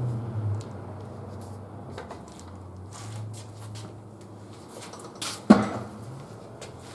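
Scattered metal clanks and knocks from a tire lever and manual tire changer as a large pickup tire's bead is forced over the rim. The loudest is a sharp knock about five and a half seconds in.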